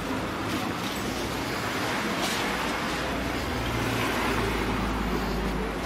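A car engine running close by in street traffic, a steady low rumble under general street noise, growing a little stronger about halfway through.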